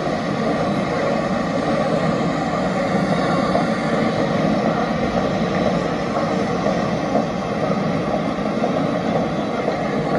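Steady city street noise of passing traffic.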